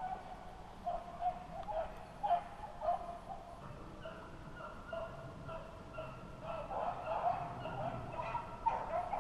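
A pack of beagles baying on a rabbit's track, a string of short repeated bays that grows louder and busier near the end: the hounds giving voice in full chase.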